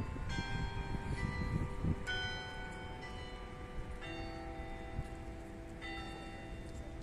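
Bells ringing: about five separate strokes, one every second or two, each ringing on and overlapping the next.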